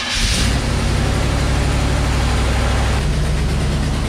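Jeep CJ engine catching right after being started and running at a steady fast idle, its note shifting slightly about three seconds in.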